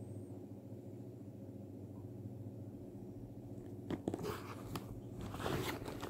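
Handling noise from a leather handbag being moved about close to the microphone: rustles and clicks in the last two seconds, over a steady low hum.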